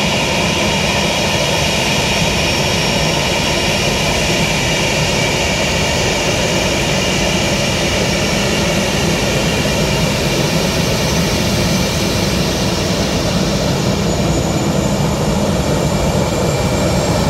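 Jet engines of a taxiing Lauda Airbus twin-engine airliner running at low thrust: a steady roar with a high-pitched whine held throughout.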